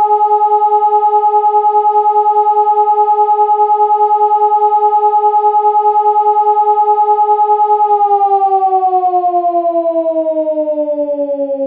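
SiRcom SiBT electronic warning siren sounding the German fire-alarm signal: a loud, steady continuous tone. About eight seconds in, the pitch begins to fall and the sound slowly fades as the siren winds down for the first of the signal's two interruptions.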